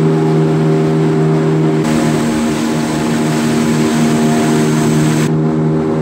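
Small boat's outboard motor running steadily: an even engine drone over a rush of wind and water. The rushing noise changes abruptly twice.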